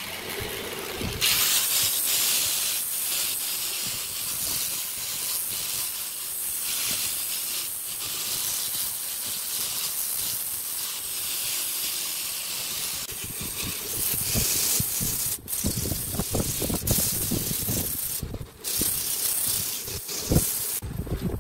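Wood being sanded on a running lathe: a sanding drum on an angle grinder working inside the mouth of a turned segmented wooden vase, then sandpaper by hand, making a steady abrasive hiss. It starts about a second in, with brief breaks about two-thirds of the way through.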